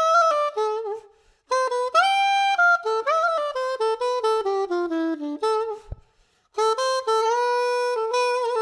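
Yamaha Venova, a plastic single-reed casual wind instrument, playing a melody in three phrases with two short pauses, the last phrase on longer held notes.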